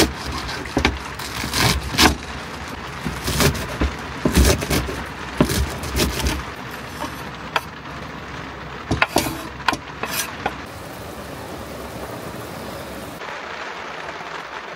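Large kitchen knife chopping iceberg lettuce on a wooden cutting board: a quick, uneven series of crisp chops, then a few scrapes and knocks as the shredded lettuce is pushed off the board into a bowl. A steady hiss fills the last few seconds.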